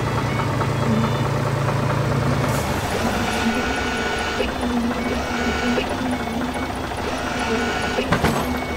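Cartoon tractor engine sound effect running steadily as the front loader arm works. A low hum drops away about two and a half seconds in, held mechanical tones start and stop every second or so, and a sharp knock comes about eight seconds in.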